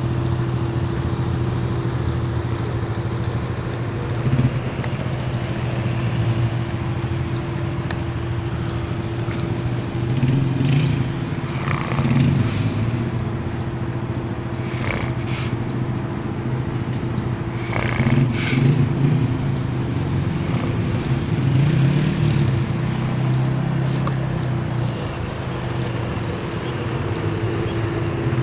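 Snoring: a steady low drone that swells louder every few seconds, with a faint tick repeating about once a second.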